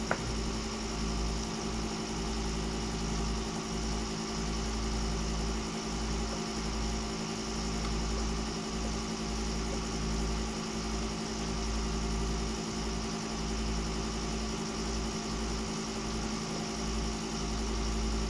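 Small engine running at a constant speed with a steady multi-pitched hum and a low rumble: a portable generator.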